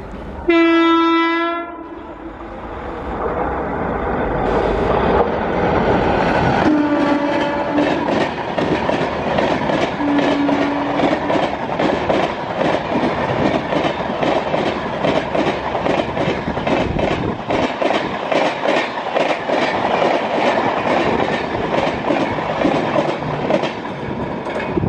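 WAP4 electric locomotive sounding its horn in one loud blast, with two shorter, lower horn notes about seven and ten seconds in. Its express coaches then pass at speed with a steady rhythmic clickety-clack of wheels over the rail joints, over a continuous rumble.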